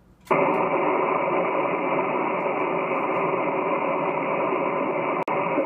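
HF amateur radio transceiver's receiver hissing with steady band noise, cut off sharply above about 3 kHz, coming on about a third of a second in as the rig switches from transmit back to receive. The hiss drops out for an instant about five seconds in.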